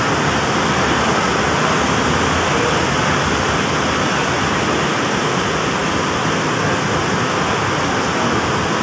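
Steady, even rushing roar of a busy bus terminal under an overpass, with bus engines and traffic blended into one continuous noise.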